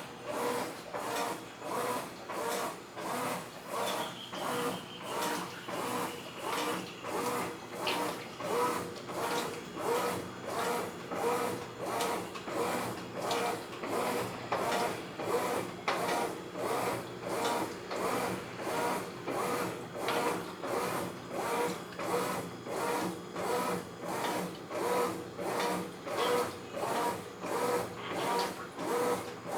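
Brastemp 14 kg washing machine running, a steady hum with an even rhythmic pulse about one and a half times a second.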